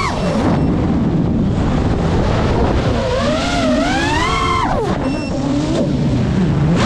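FPV racing quadcopter's brushless motors and propellers whining, the pitch surging and dropping with the throttle. It falls away at the start and stays low under a rush of air, climbs again about three seconds in, dips and bobs near the middle, and surges once more at the very end.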